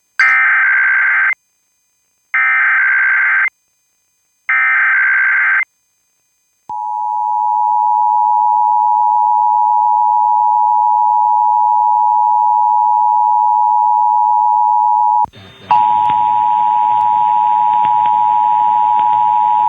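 Emergency Alert System test broadcast over FM radio: three one-second bursts of the screeching digital SAME header, then the steady two-tone attention signal (853 and 960 Hz), which fades up and holds. About 15 seconds in it drops out briefly and returns with hiss under the tone.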